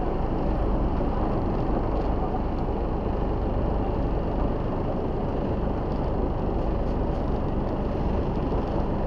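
Steady drone of a river tourist boat's engine under way, mixed with the rush of choppy water along the hull.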